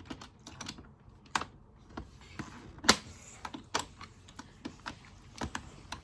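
Irregular light clicks and taps of small hard objects, a few a second, with louder ones about a second and a half in and about three seconds in.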